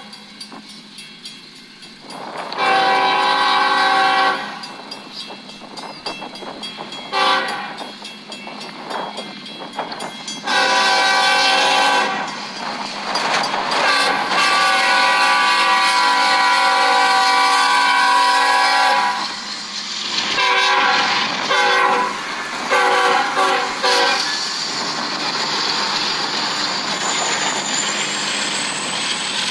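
BNSF diesel freight locomotive's air horn blowing a series of blasts for a grade crossing: a long blast a few seconds in, more blasts, one long held blast, then several short toots. Between and after the blasts, the train rumbles and its wheels clatter over the rails as it passes.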